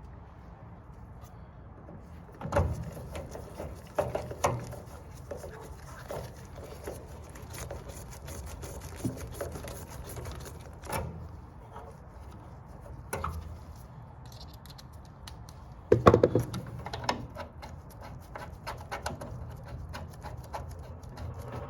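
Irregular clicks, knocks and rattles of metal parts and tools being handled while a water heater's burner and gas valve are fitted, with louder clunks about two and a half seconds in and again about sixteen seconds in.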